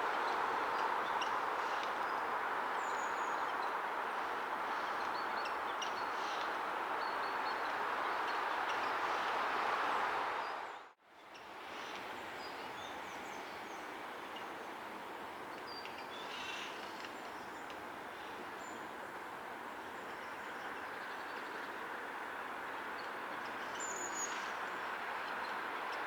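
Eurasian jay giving faint, scattered short clicks and high chirps over a steady background noise. The background cuts out briefly about eleven seconds in.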